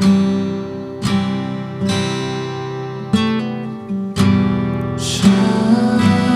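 Acoustic guitar strumming slow chords, a new chord struck every second or two and left to ring. A brief hissing wash comes in about five seconds in.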